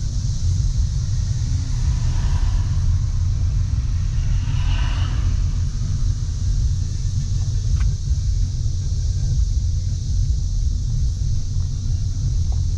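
Chevrolet Camaro 2SS 6.2-litre V8 with a Borla cat-back exhaust running at idle, heard from inside the cabin as a steady low rumble with no revving.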